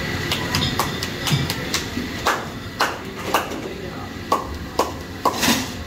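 A quick, uneven run of sharp taps and knocks, about two a second, some with a short ring, over a steady bed of voices and street noise.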